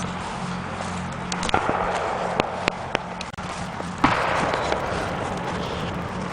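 Aerial fireworks going off: a string of sharp bangs from about a second and a half in, then the loudest bang at about four seconds, followed by a spray of crackling noise. A steady low hum runs underneath.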